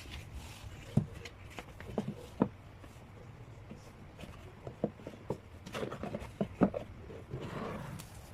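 Albums and their packaging being handled: a scatter of knocks and taps, the loudest about a second in, at two and a half seconds and near the end, with some rustling.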